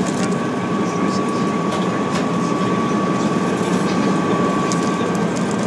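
Steady cabin noise of an Airbus A380 in flight: an even rush of air and engine noise with a faint steady whine running through it, and light crinkles of snack packets being handled.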